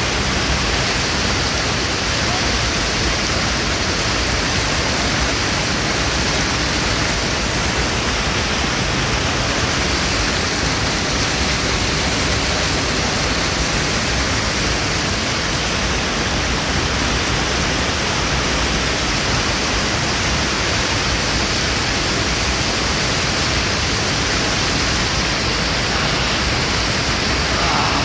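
Mountain waterfall cascading over boulders, heard up close: a loud, steady rush of falling water.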